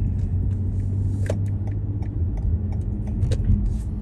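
A car driving, heard from inside the cabin: a steady low engine and road rumble, with scattered light clicks and rattles.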